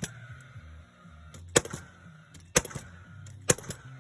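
Nail gun firing nails into timber fence boards: four sharp shots about a second apart, most followed by a lighter click, over a low steady hum.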